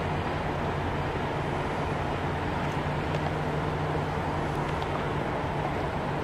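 Steady low drone of the thousand-foot lake freighter Edwin H. Gott's diesel engines as the ship passes, a constant hum over an even outdoor rumble.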